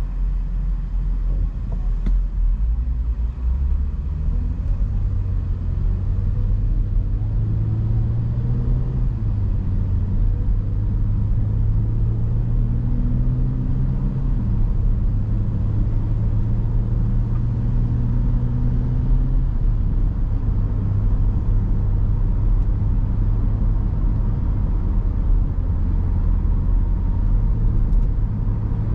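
BMW X5 driving: a steady low engine and road rumble, the engine note rising slightly about eight seconds in and falling back near twenty seconds.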